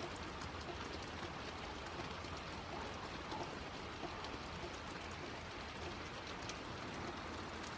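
Steady rain falling, a constant hiss with faint scattered patter of drops striking nearby.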